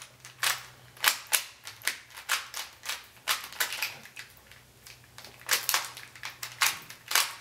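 Rubik's cube being twisted quickly by hand: a fast, irregular run of sharp plastic clicks and clacks, several a second.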